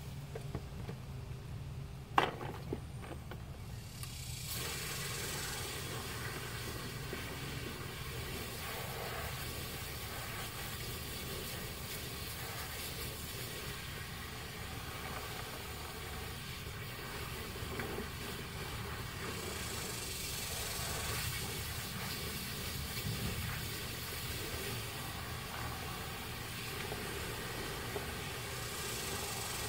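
Garden hose spray nozzle running steadily, water hissing into a plastic tub as freshly picked long beans are rinsed, after a sharp click about two seconds in. A steady low hum runs underneath.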